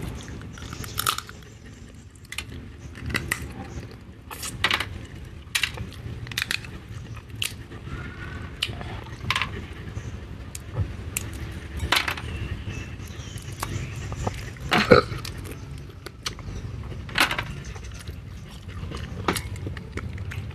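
A person chewing and gnawing pieces of chicken close to the microphone: irregular sharp clicks and smacks about once a second, the loudest about fifteen seconds in.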